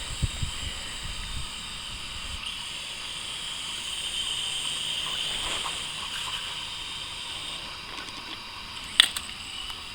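Toy remote-control helicopter flying, its small electric motor and rotor giving a steady high whine that wavers slightly in pitch and fades after about seven seconds. About nine seconds in comes a single sharp knock as it crash-lands on cement.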